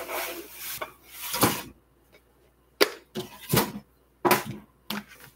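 Kitchenware being handled on a counter: about six separate knocks and clatters of dishes and cookware being moved and set down, with short quiet gaps between them.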